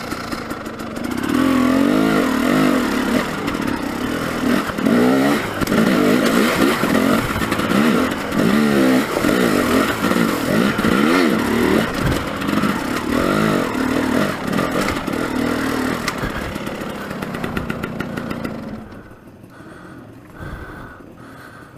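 Dirt bike engine revving up and down over and over while riding over rock, with some clatter; about nineteen seconds in it falls much quieter.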